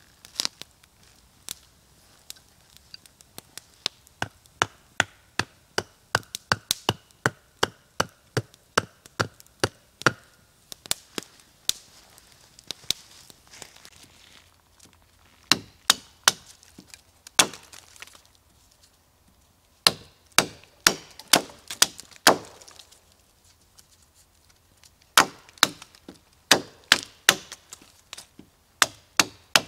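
Hatchet chopping into a wooden branch laid on a fallen log: sharp, separate wooden chops about two to three a second, in runs broken by a few short pauses.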